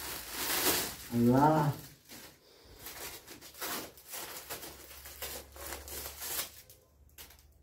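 Crinkling foil gift wrap and tape being peeled off as a present is unwrapped: an irregular run of crackles and rustles that thins out near the end. A short voice is heard about a second in.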